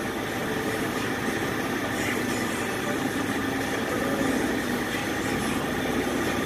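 An engine or motor running steadily with an even, idling drone.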